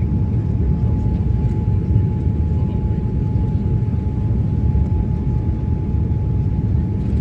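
Cabin noise inside a Boeing 787-9 airliner in flight: a steady low rumble of engines and rushing air, with a faint steady hum above it.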